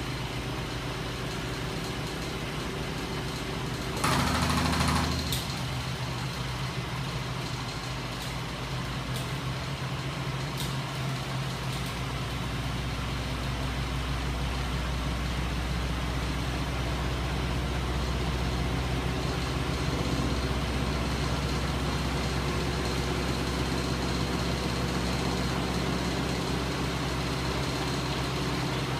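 Electric motors and flywheels of a bench-top magnet-motor rig running with a steady mechanical hum. About four seconds in there is a louder rush lasting about a second, and from about twelve seconds on the low hum grows stronger.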